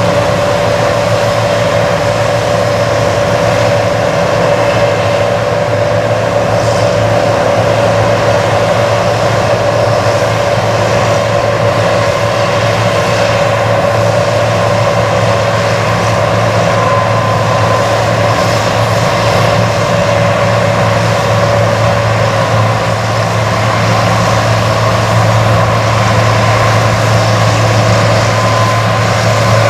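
John Deere 8820 Titan II combine running steadily under load while harvesting corn: a loud, even machine drone with a held whine that fades about three-quarters of the way through, and a higher whine coming and going.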